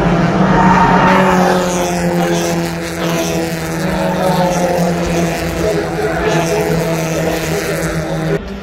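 A pack of Spec Miata race cars (Mazda MX-5 Miatas) running through a corner, the notes of several four-cylinder engines overlapping. One engine note slides down about a second in, then the pack drones on. The sound changes abruptly near the end.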